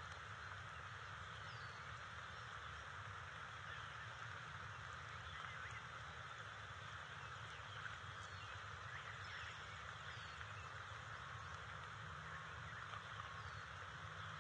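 Steady outdoor background hiss and low hum with a few faint, short bird chirps scattered through.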